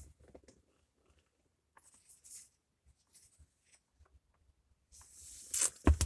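Handling noise: faint rustling, scraping and soft clicks, growing into louder rustling about five seconds in, with two sharp knocks near the end.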